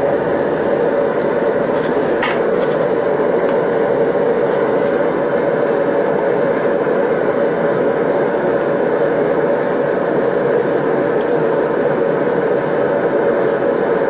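TS8000 air/propane torch firing into a Kaowool-lined stacked brick furnace, its flame making a steady rush while it heats a crucible. One small tick about two seconds in.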